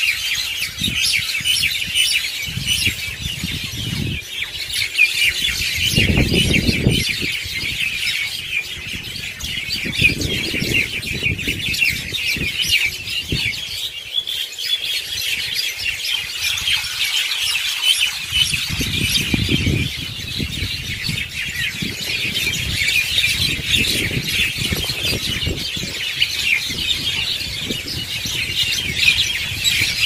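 Dense evening roost chorus of many small birds chattering and chirping at once, a continuous overlapping din. A low rumble comes and goes underneath several times.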